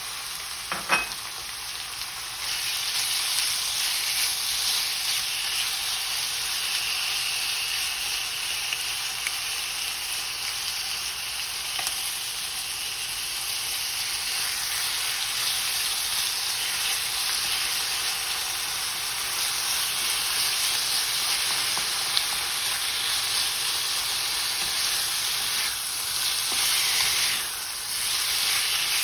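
Sliced chicken breast frying in hot olive oil with garlic, ginger and onion: a steady sizzle that gets louder a couple of seconds in, with a single sharp knock about a second in.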